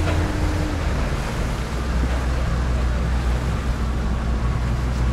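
Motorboat engine running steadily under way, with water washing along the hull and wind on the microphone.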